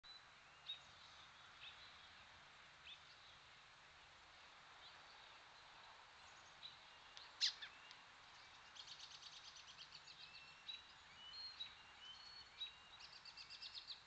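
Small birds chirping faintly over a steady hiss: scattered short chirps, one louder sweeping call about halfway through, and runs of quick repeated notes in the second half.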